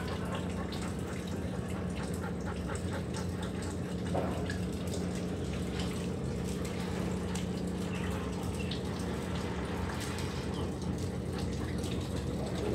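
Steady low hum under an even, water-like hiss, with faint scattered ticks.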